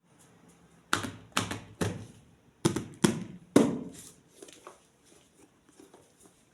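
Six sharp knocks in two groups of three, each dying away quickly, followed by faint handling rustles and clicks.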